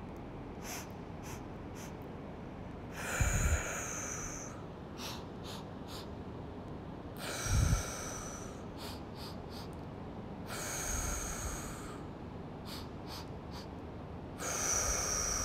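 A woman doing bunny breathing: three quick sniffs in through the nose, then a long breath blown out, four times over.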